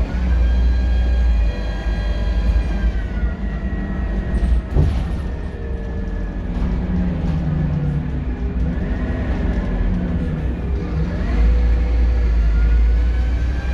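Scania K230UB bus under way, its engine rumbling under a whine from the turbo and differential. The whine falls as the bus eases off, there is a single knock about five seconds in, and near the end the engine pulls harder and the whine climbs again.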